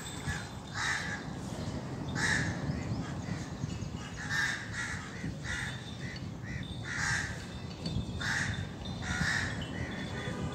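Crows cawing repeatedly, about a dozen harsh calls spread through the stretch, several coming in quick runs of three or four.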